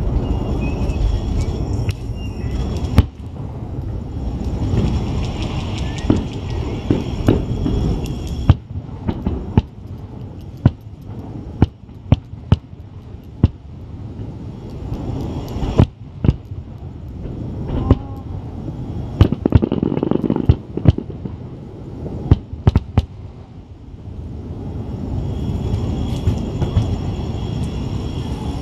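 Aerial firework shells bursting over the sea: many sharp bangs at irregular spacing, some in quick clusters, over a continuous low rumble of booms echoing off the Onigajo sea cliffs.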